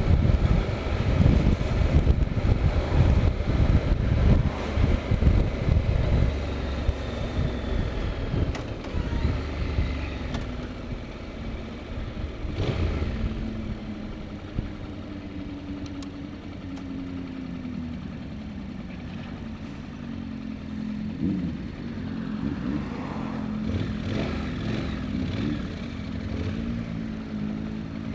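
Motorcycle engine and wind noise heard from the riding bike. Loud at first, then quieter from about a third of the way in, with the engine note falling as the bike slows behind traffic.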